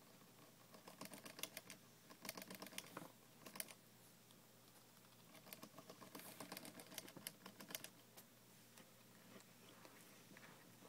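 Teddy bear hamster drinking from a water-bottle spout: its tongue works the spout in runs of rapid faint clicking, with pauses between.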